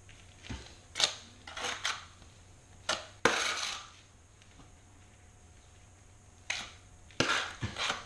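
Short scrapes and knocks of tile-setting work: a trowel and a large porcelain tile buttered with thinset mortar being handled. There are about six brief hard sounds, with a longer scrape a little past three seconds in.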